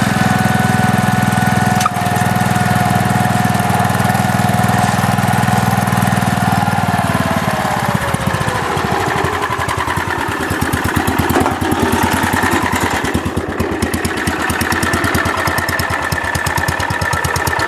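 Wheel Horse C101's 10 hp single-cylinder cast-iron Kohler K241 engine running quietly through its large muffler. About eight seconds in, the engine note drops and settles into a slower, even beat.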